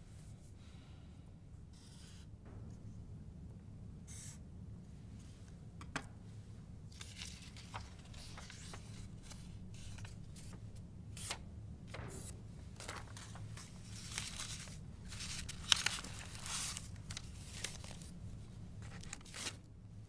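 Paper slips being handled and torn by hand: a series of short rustles and rips, busier in the second half, with one sharp rip about three-quarters through, over a faint steady low hum.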